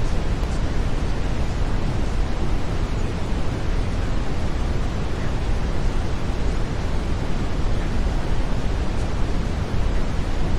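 Steady brown noise: an even hiss with no pattern, strongest in the low end and falling away toward the highs.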